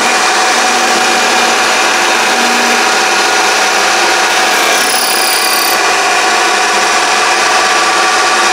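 Mini lathe running steadily with a motor whine. About five seconds in there is a brief high-pitched squeal lasting about a second.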